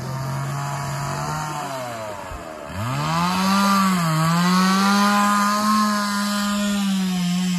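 Chainsaw running at high revs while cutting wood. Its pitch drops away about two and a half seconds in, then climbs back and holds higher and louder until it falls off at the end.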